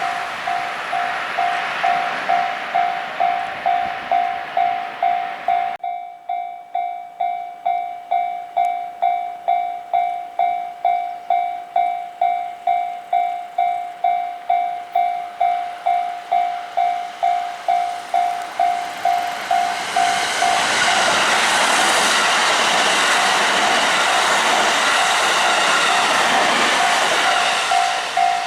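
Japanese level-crossing warning bell ringing steadily, a little under two strikes a second, while electric trains pass. One train runs past at the start and cuts off about a fifth of the way in. Another passes loudly over the last third, its noise covering the bell until just before the end.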